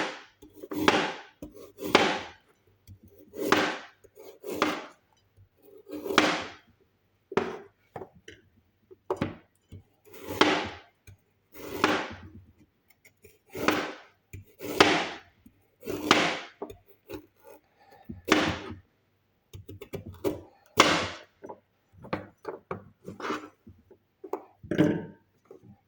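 A knife slicing a raw carrot on a cutting board: a crisp cut and a knock on the board with each stroke, at a slow, steady pace of about one slice a second.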